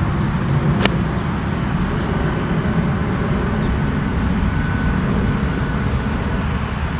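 A single crisp strike of a 60-degree wedge on a golf ball, about a second in, over a steady low background rumble.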